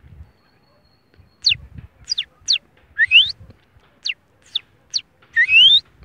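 A man imitating the song of the red-cowled cardinal (galo-de-campina): a string of about eight quick, high whistled notes, mostly sharp downward sweeps with two longer upward glides, starting about a second and a half in. It is only a rough version, as he can't remember how the song goes.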